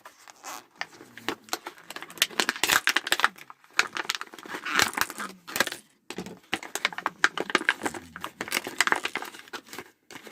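Crinkly plastic packaging being handled and torn open by hand around a small survival whistle, making irregular crackling that comes in bursts with a few short pauses, and occasional light clinks of small hard parts.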